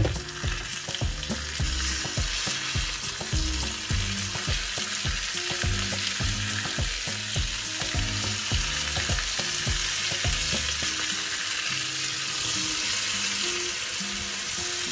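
Diced potatoes, onion and freshly added tomatoes sizzling steadily in hot oil in a non-stick frying pan, stirred with a silicone spatula.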